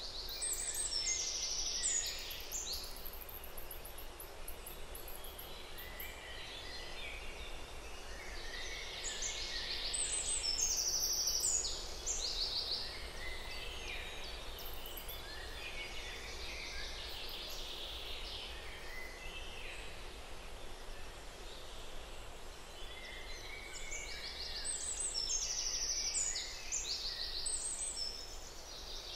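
Songbirds singing over a steady background hiss of outdoor ambience, in quick chirping phrases that swell near the start, around the middle and near the end.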